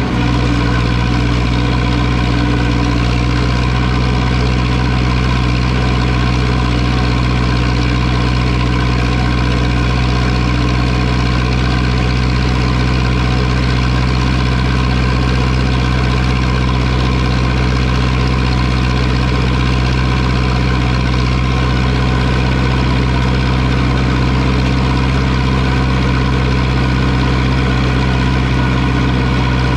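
Zetor 6245 tractor's four-cylinder diesel engine running steadily at an unchanging engine speed.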